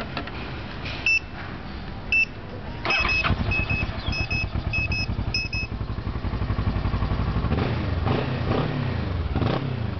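Two short beeps from a motorcycle alarm, then the Kawasaki Ninja 650's parallel-twin engine cranks and starts about three seconds in, set off by the alarm's remote with no key in the ignition, while the alarm gives a string of short beeps. The engine then idles, its revs rising and falling a few times near the end.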